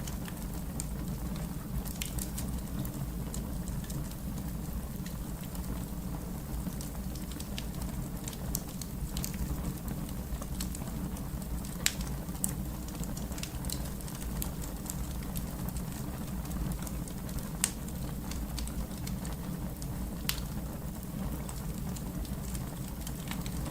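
Fire crackling: a steady low rumble of the flames with scattered sharp pops, a few louder ones from about halfway on.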